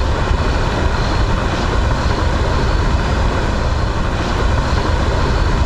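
Wind buffeting the microphone: a steady rushing noise with a heavy, unsteady low rumble.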